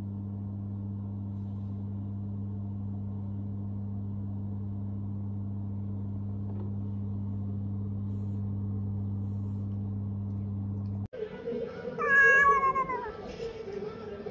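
A steady low hum holds unchanged for about eleven seconds and then cuts off abruptly. Near the end a domestic cat meows, one loud drawn-out call that falls in pitch.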